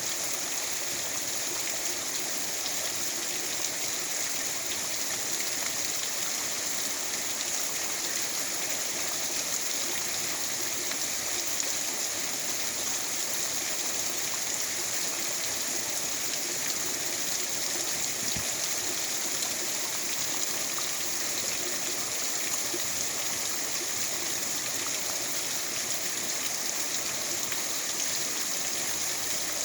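Rain falling steadily, a continuous even hiss with no let-up.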